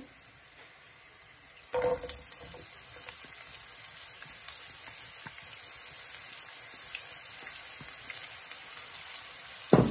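Sliced onions dropped into hot oil and garlic in a frying pan. A sudden loud sizzle starts about two seconds in and settles into steady frying, with a knock near the end.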